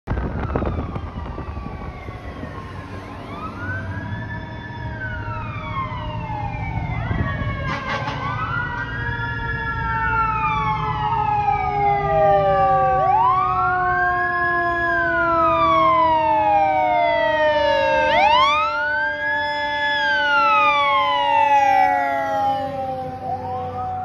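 Fire engine siren on wail, sweeping up, holding and sliding back down about every five seconds, over a second siren tone that falls slowly the whole time. A sudden loud blast about eight seconds in, likely the engine's air horn, over a low rumble from the truck.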